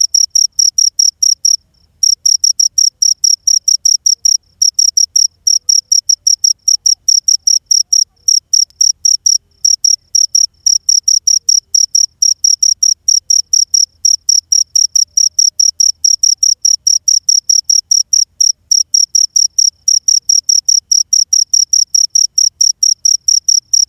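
Cricket (jhingur) chirping: a rapid, even train of short, high-pitched pulses, broken by a few brief pauses.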